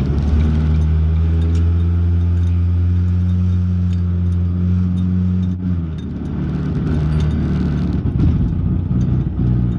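A car's horrible noise under throttle: a loud, low, steady droning hum heard inside the cabin. About six seconds in it breaks off into a rougher rumble of engine and road noise.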